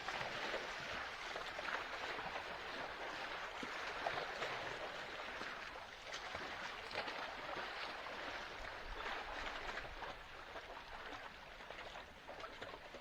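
Sea water sloshing and splashing steadily, with many small irregular splashes and gurgles.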